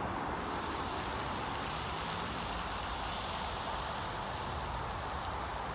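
Beer poured over chicken wings drips into the hot, nearly dry water pan of an upright charcoal smoker and sizzles with a steady hiss.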